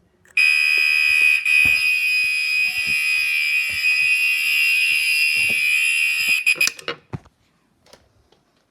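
Fire alarm horns sounding one loud, steady, continuous tone for about six seconds, then cutting off suddenly.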